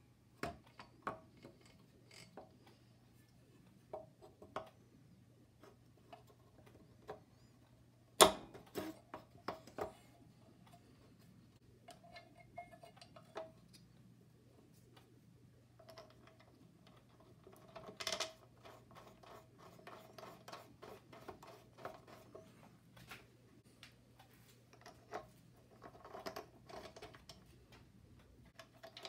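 Light metal clicks, taps and scrapes as the aluminium cylinder and head of a small air compressor pump are handled and fitted back on by hand, with one sharp knock about eight seconds in and a busier patch of clatter a few seconds before the end.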